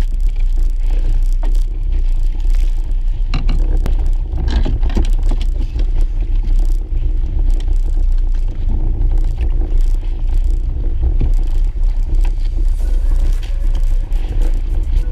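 Steady, loud low rumble on a small outrigger fishing boat at sea, with scattered short knocks and scrapes from handling the fishing gear, busiest a few seconds in.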